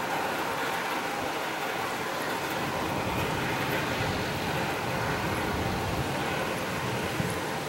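Steady outdoor wind noise with the hiss of ocean surf, the wind buffeting the microphone as a low rumble that grows stronger partway through.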